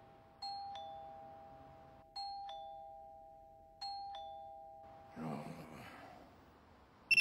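Two-tone doorbell chime rung three times in a row, each a ding-dong of a higher note followed by a lower one, about every 1.7 seconds.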